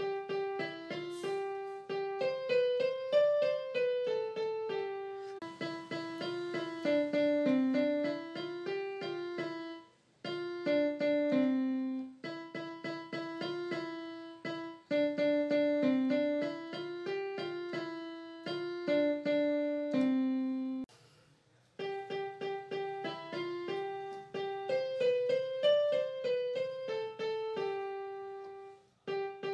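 Background music: a solo piano melody of quick single notes played in phrases, with short pauses between phrases about a third and two thirds of the way through.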